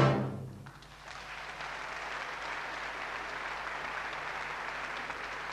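The last orchestra-and-choir chord of a musical number dies away in the first second, then audience applause swells up and holds steady.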